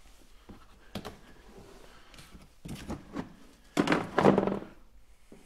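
A sharp knock about a second in, then a few dull thuds and rustling, the loudest cluster about four seconds in.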